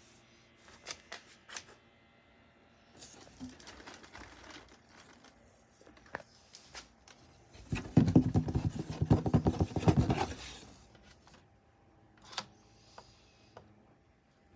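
Rapid scratching on a cardboard box for about two and a half seconds, starting about eight seconds in. A few lighter taps and rustles of cardboard come before and after it.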